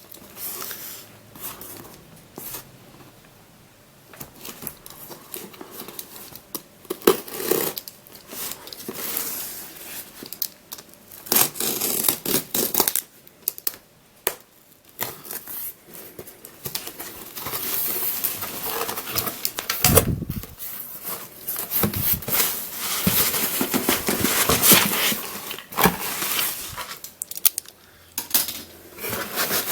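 A parcel being opened by hand: packaging tearing and crinkling in irregular bursts, with handling clicks and a heavier thump about twenty seconds in.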